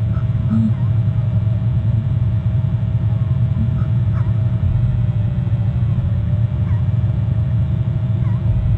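Steady low rumble picked up by an outdoor camera microphone, with a faint steady hum and a few faint short bird chirps scattered over it.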